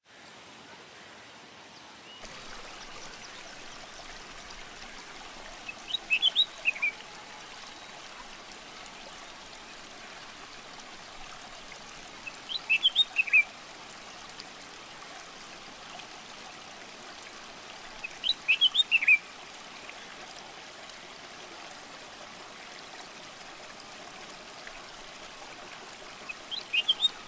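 Water running steadily from an outdoor standpipe tap into a basin, with a bird calling a short burst of chirps four times, about every six seconds.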